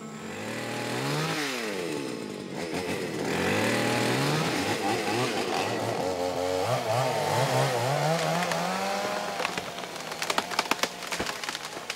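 Chainsaw cutting into a tree trunk, its engine revving up and down again and again as it bites. A burst of sharp cracks comes near the end.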